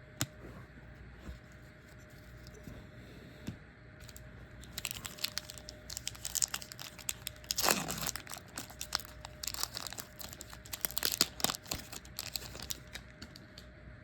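Trading-card pack wrapper being torn open and crinkled by hand: a few light clicks, then a dense run of crackly rips and rustling from about five seconds in, the loudest tear about halfway through.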